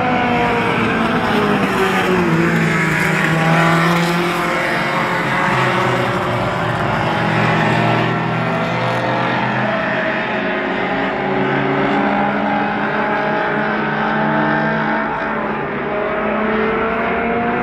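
Mini stock race cars' four-cylinder engines running together around a short oval. Several engines are heard at once; their pitch drops as cars pass about two seconds in and climbs again near the end.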